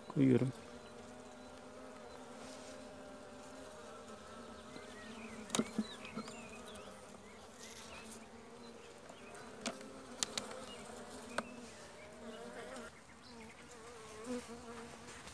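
Honeybees buzzing steadily over an open hive, a constant low hum, with a few sharp clicks in the middle of it.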